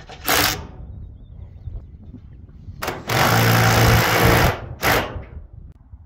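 Cordless impact driver driving a hex lag bolt into a timber base. It runs in three spurts: a short one near the start, a longer hammering run of about a second and a half in the middle, and a short final burst.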